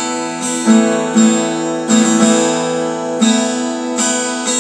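Acoustic guitar strumming chords, with a fresh strum roughly every half second to second and the chords ringing on between strums.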